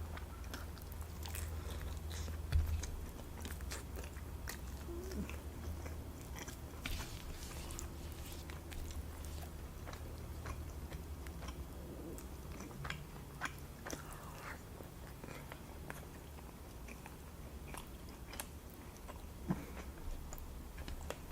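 A person chewing food close to the microphone, with soft, irregular mouth clicks and smacks, over a faint steady low hum.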